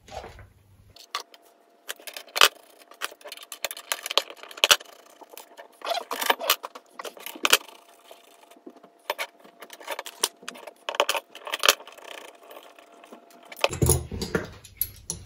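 Metal fins of an air-spaced variable capacitor clinking and jangling against each other in many irregular sharp clicks as the capacitor is taken apart by hand to remove fins. Near the end a low rumble of handling joins in.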